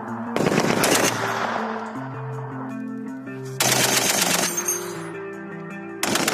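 Machine gun firing three bursts: the first starts just after the beginning, the second near the middle and the third at the end. Each burst trails off in a fading echo, over background music of held notes.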